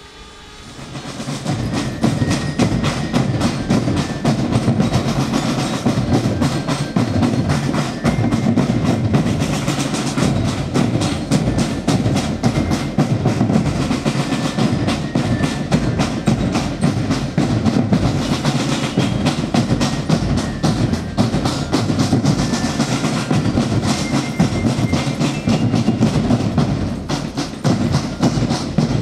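Marching drum line playing a fast, continuous drum beat. It swells in about a second in.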